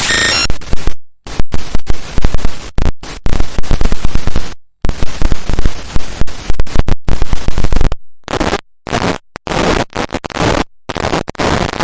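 Digital glitch sound effects: loud bursts of static and distorted noise, stuttering and cut off abruptly into brief silences again and again. From about 8 s in, the bursts are shorter and more choppy.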